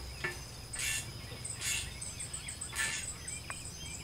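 A bolt being worked with a hand tool at the base of a steel mailbox post: short rasping strokes about a second apart, four in all. Birds chirp near the end and an insect buzzes steadily at a high pitch.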